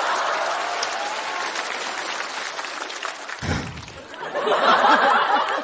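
Studio audience applauding. The applause dies down and then swells again about four and a half seconds in.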